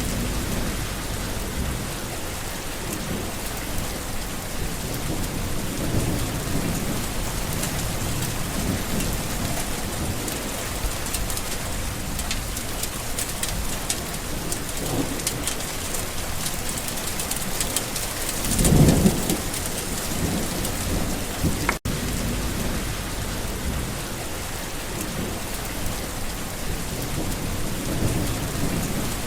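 Steady rain falling on plant leaves, a continuous dense patter. Low rumbling swells come and go underneath, the loudest about two thirds of the way through, and the sound cuts out for an instant shortly after.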